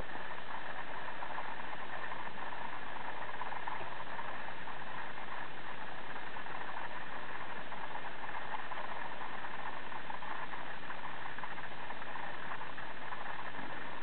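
Steady mechanical hum with hiss, unchanging throughout, with no meows or other distinct sounds.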